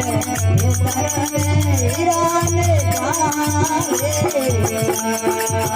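Rajasthani devotional bhajan music: a wavering melody over fast, steady rattling percussion and a pulsing drum.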